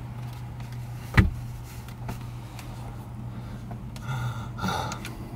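Steady low hum inside a parked car, with one sharp click about a second in and a brief muffled sound around four seconds in, as a drone remote controller is handled.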